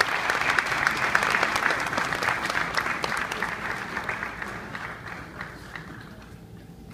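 Audience applauding: dense clapping that gradually dies away near the end.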